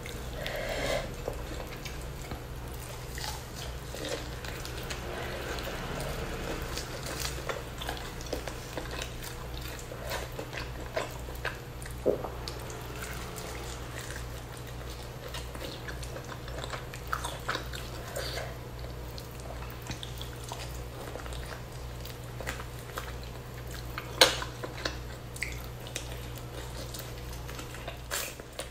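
Close-miked chewing and biting of spicy duck meat eaten by hand, with wet mouth smacks and scattered sharp clicks over a steady low hum. One click about three quarters of the way through stands out as the loudest.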